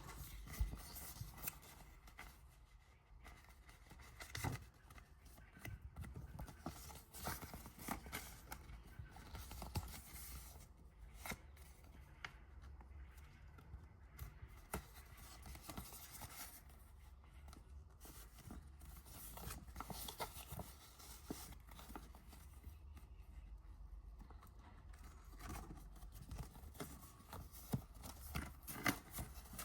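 Faint paper-crafting sounds: paper rustling and being cut with scissors, with irregular short snips and clicks.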